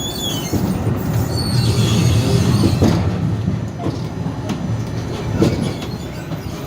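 Tram pulling away, its running gear making a low rumble that peaks two to three seconds in. Brief high wheel squeal comes early, and sharp clacks follow from the wheels over rail joints.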